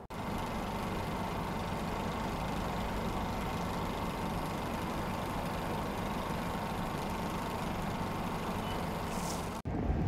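Steady street drone of an idling vehicle engine in city noise, with a faint steady whine throughout; it breaks off abruptly near the end.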